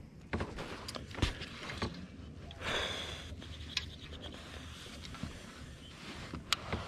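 Small clicks and light rustling of fishing line and terminal tackle being handled as a lure is changed, with a short breathy rush about three seconds in and a sharp click near the end.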